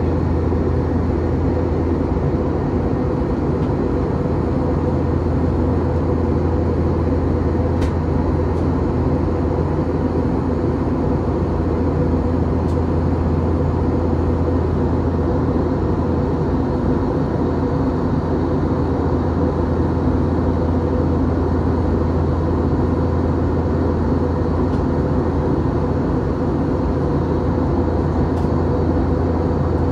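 Steady cabin noise of an Airbus A321 in flight, heard inside the cabin: an even roar of engines and rushing air with a low hum underneath that does not change.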